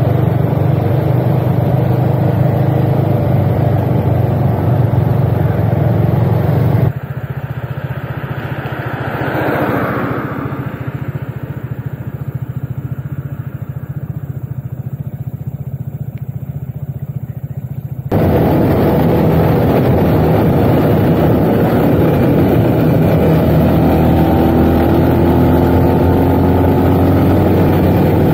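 Motorcycle engine running steadily while riding. About seven seconds in the sound abruptly turns quieter and duller, swells briefly a few seconds later, then comes back at full strength about eleven seconds after the drop.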